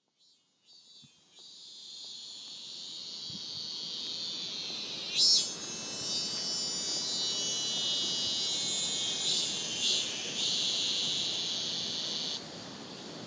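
A high, steady insect chorus in outdoor ambience. It fades in from silence, grows suddenly louder about five seconds in, and drops back near the end.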